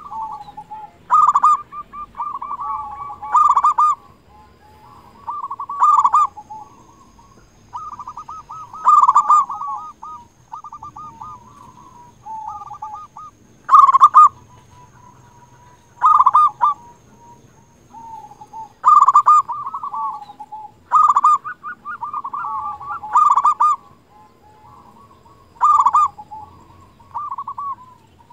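Local-strain zebra dove (perkutut) singing freely: repeated cooing phrases of quick trilled notes, each with a loud accented coo, coming about every two to three seconds with a quieter spell around the middle.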